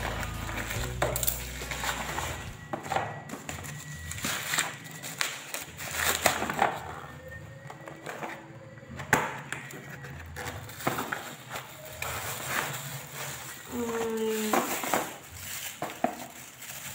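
Scissors cutting and hands tearing open a bubble-wrap mailer, then handling a cardboard box and unwrapping a ring light from its plastic bag: irregular crinkling, rustling and light knocks.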